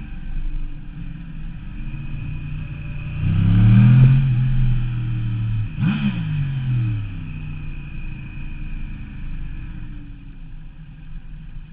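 The stock-exhaust crossplane inline-four of a 2009 Yamaha R1, heard onboard. It runs at moderate revs, then its revs and loudness climb about three seconds in. Near six seconds the revs drop sharply, and it runs lower and fades toward the end as the bike slows.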